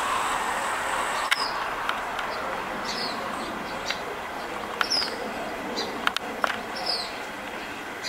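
Birds chirping: short, high, falling notes about every two seconds over a steady background hiss, with a few sharp clicks.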